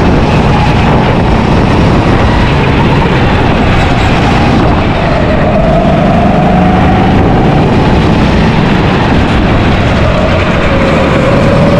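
Go-kart motor running at speed, heard close up from the kart itself, with its pitch rising and falling as the kart speeds up on the straights and slows into the corners.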